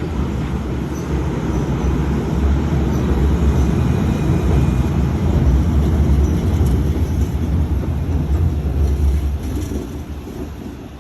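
Electric commuter train of the Kamikochi Line passing by: a loud low rumble that swells over the first few seconds, holds through the middle and fades away near the end.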